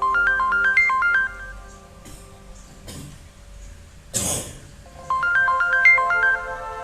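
Tecno phone stock ringtone: a quick melodic phrase of short bright notes over held tones, repeated about five seconds in, with a short noisy swish between the two phrases.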